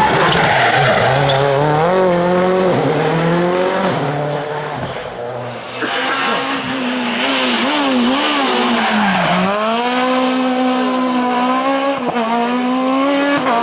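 Rally car engines revving hard and running up through the gears, the pitch climbing and then dropping at each shift. About six seconds in the sound changes abruptly to another car, which accelerates, drops pitch briefly near nine seconds and then holds high revs.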